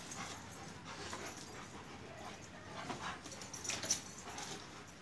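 Akbash and Kangal shepherd dogs play-fighting: irregular scuffles with short whimpers and panting, the loudest bursts about three and four seconds in.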